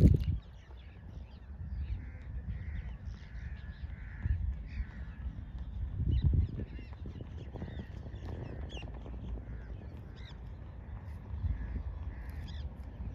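Crows cawing repeatedly, with small birds chirping faintly and a low rumble of wind on the microphone that swells about six seconds in.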